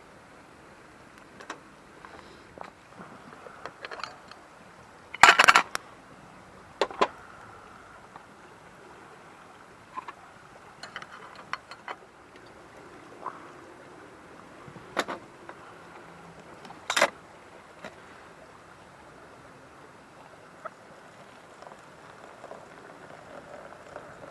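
Scattered clinks and knocks of objects being handled, the loudest a short rattle about five seconds in, over a faint steady hiss.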